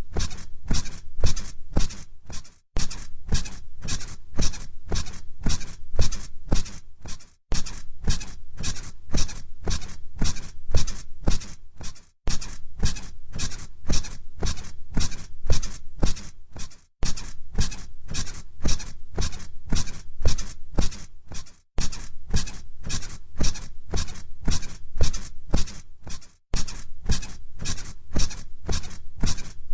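Bed springs squeaking in a steady rhythm from someone bouncing on a mattress, about two to three creaks a second, each with a low thump under it. The pattern breaks off briefly and starts again roughly every five seconds, as a repeating loop.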